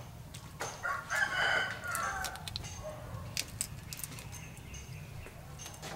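A rooster crows once, about a second in, for a second or so. Several sharp clicks follow, as prawn shells and heads are snapped off by hand.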